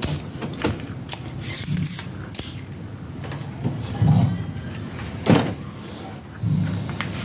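Hand tools working on a TV circuit board while a capacitor is swapped: scattered clicks, taps and short hissing scrapes, with a sharp click about five seconds in.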